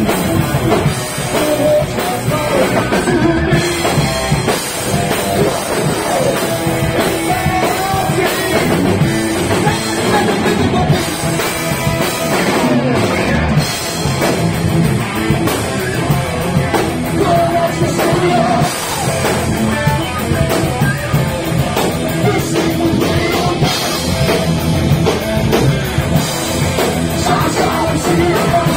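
Heavy metal band playing live at full volume, with a pounding drum kit and electric guitars.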